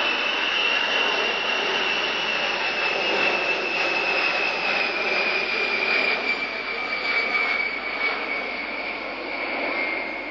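The eight jet engines of a Boeing B-52 Stratofortress on a low flyby: a loud, steady rush of jet noise with a high whine that slowly falls in pitch as the bomber passes and draws away, getting quieter near the end.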